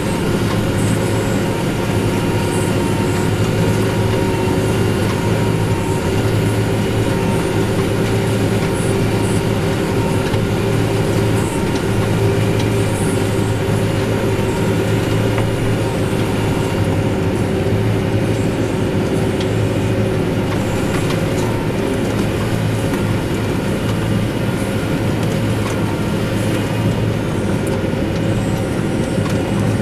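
Farm tractor engine running steadily under load while pulling hay machinery, with a steady whine that fades out about twenty seconds in.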